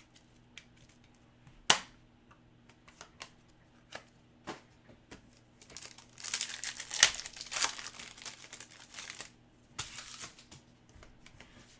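Trading card pack wrappers crinkling and tearing as packs are opened, loudest between about six and nine seconds in, with a few sharp clicks scattered through.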